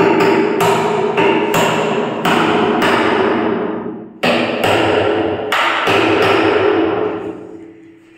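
Building work in a house: a run of loud, irregular hammer blows on something metallic, each one ringing on. There is a short pause a little past four seconds before the blows start again, and they fade out near the end.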